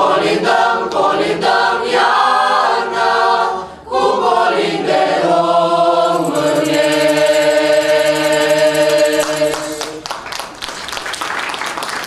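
Mixed youth choir singing a Romanian Christmas carol (colind) a cappella. Its last phrase ends on a long held chord that stops about ten seconds in, followed by applause.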